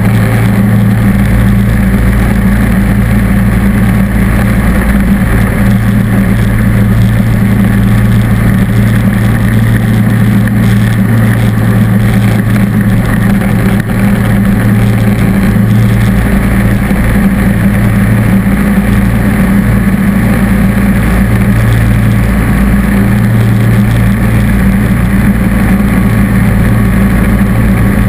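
John Deere D140 lawn tractor's Briggs & Stratton V-twin engine running steadily and loudly under load, driving a front-mounted snowblower that is throwing snow.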